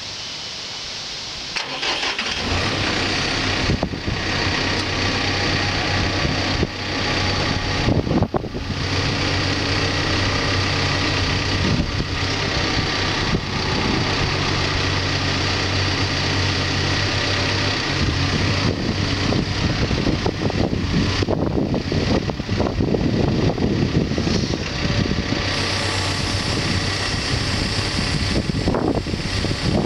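Backhoe's diesel engine starting about two seconds in, then running steadily at idle; after about eighteen seconds its sound turns rougher and more uneven.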